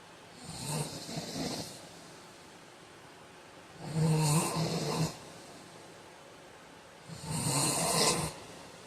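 A man snoring in his sleep: three snoring breaths about three seconds apart, the first one softer, the middle one with a low buzzing rattle.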